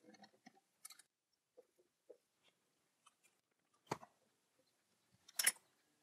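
Faint metal clicks and taps from hands fitting a thin steel rod and spring wire into a lathe chuck, with two sharper clicks about four and five and a half seconds in.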